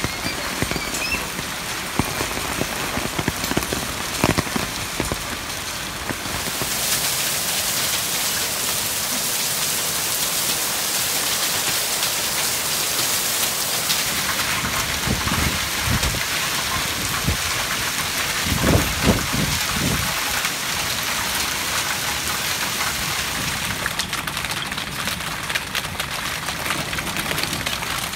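Hailstorm: hailstones and heavy rain pelting the ground in a dense, steady patter. Separate hailstone clicks stand out in the first few seconds, the downpour grows denser from about six seconds in, and there are a few dull thumps about two-thirds of the way through.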